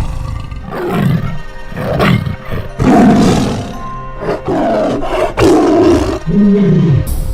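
Tiger roaring and growling in a series of loud, deep calls, the strongest in the middle of the run.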